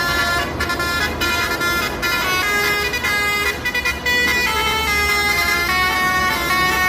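Basuri telolet truck horns, driven by a Bluetooth Android-app module, playing a quick melody of high horn notes that step from pitch to pitch several times a second.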